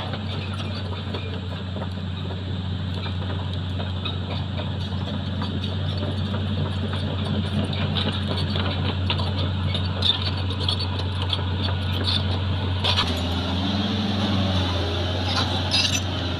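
Crawler excavator's diesel engine running steadily as the machine moves, with scattered short metallic clinks.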